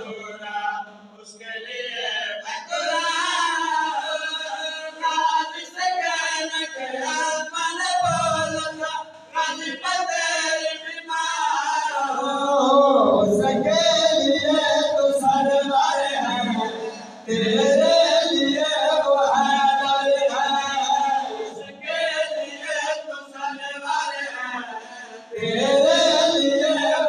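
A man chanting devotional verse in a melodic, sung style into a microphone, with other men's voices joining in. The phrases rise and fall and are held, broken by short pauses for breath.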